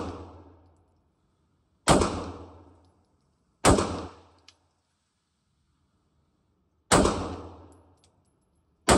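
Canik Mete SFT PRO 9mm pistol fired in four single, deliberately spaced shots, about two to three seconds apart, each followed by about a second of echo dying away.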